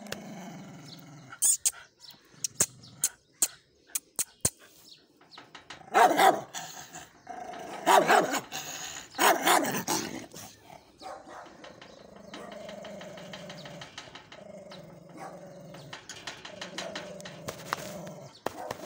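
A small white long-haired dog barks a few times in loud bursts around the middle, then growls in long, low stretches broken by short pauses. Before the barks come a run of sharp clicks and taps.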